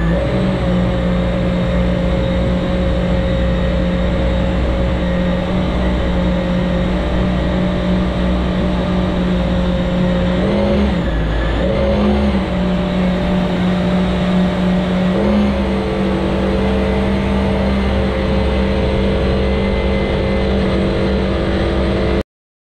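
Jetski engine of a jet-propelled water car running steadily, its pitch dipping and rising again about halfway through and stepping up a few seconds later, then cutting off suddenly near the end.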